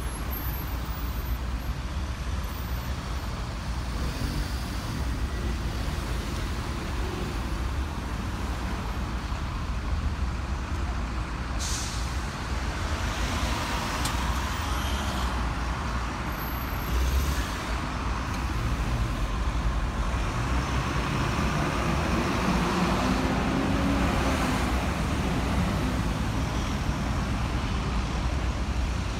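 Buses and cars idling and creeping through a congested junction, engines running steadily, with a short sharp air-brake hiss from a bus about twelve seconds in and an engine pulling away later on.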